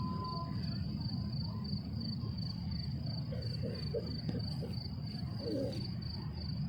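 A cricket chirping in a steady, evenly pulsed high trill over a constant low rumble of ambient noise.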